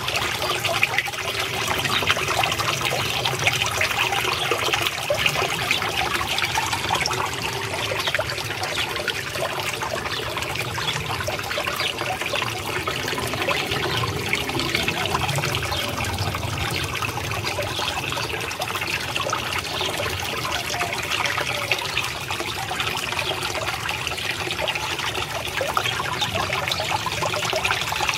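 Water trickling and splashing steadily into a garden fish pond, a continuous even flow.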